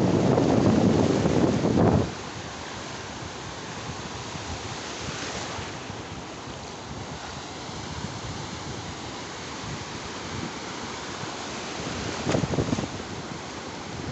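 Surf washing in over a sandy beach: a steady rush of breaking waves and foam. For the first two seconds a loud rumble of wind buffeting the microphone covers it, cutting off suddenly; a louder wash of surf swells briefly near the end.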